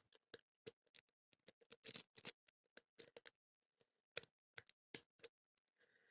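Faint, irregular metallic clicks and ticks of a wave rake and tension wrench working the pin tumblers of a zinc padlock.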